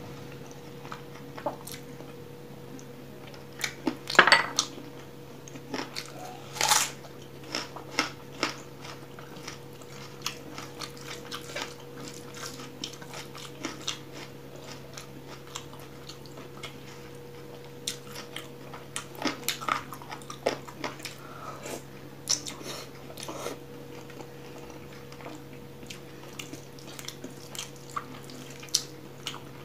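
Wet squishing and clicking of fingers mixing rice with oily chicken curry gravy on a plate, mixed with chewing. The sounds come in irregular short bursts, the loudest about four and seven seconds in, over a steady low hum.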